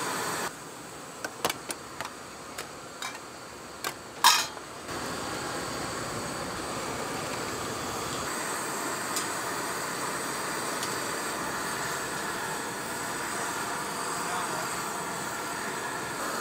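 Steady background noise of a busy night-market hot pot stall. For a few seconds it drops quieter, with several light clicks and a brief, louder noise burst about four seconds in.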